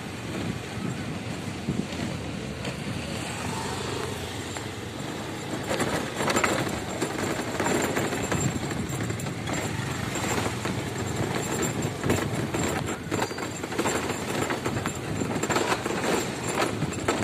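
A vehicle driving along a rough, muddy road: steady engine and road noise, with bumps and rattles from about six seconds in.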